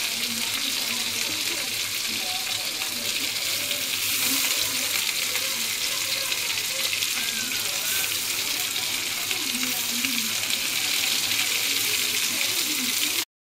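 Chopped onion, garlic, chili and tomato frying in hot oil in an aluminium wok, a steady sizzle as a spatula stirs them. The sizzle cuts off suddenly just before the end.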